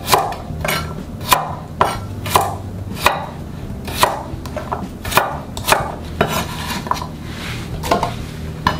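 Kitchen knife cutting garlic cloves in half against a cutting board: about a dozen sharp knocks, roughly one every half second.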